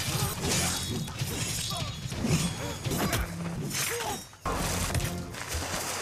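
Film fight-scene soundtrack: music mixed with clashing, crashing blows and splashing water, with an abrupt cut to a new noisy section about four and a half seconds in.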